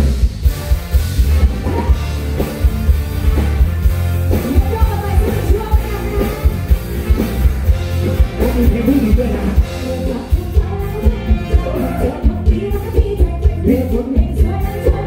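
Live band played through a PA: drum kit beating about twice a second over heavy bass, electric guitar, and sung vocals.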